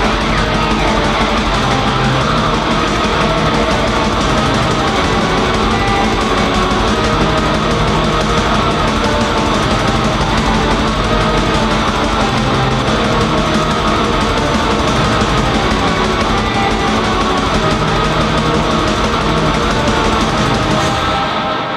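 Raw black metal music: a dense, loud wall of distorted guitar with shifting bass notes, dropping away right at the end.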